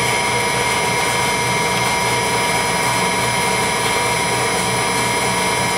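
Permanent-magnet generator and its drive motor running steadily under electrical load, a constant mechanical whine with several high steady tones over a pulsing hum.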